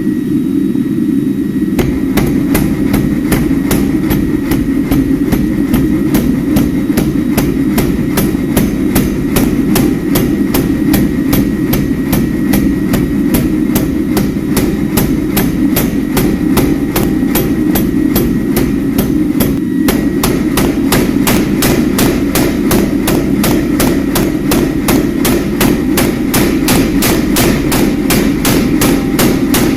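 Steel being hammered at the forge: evenly paced metal-on-metal blows, about three a second, starting about two seconds in, over a steady low rumble. The blows pause briefly just before the twenty-second mark.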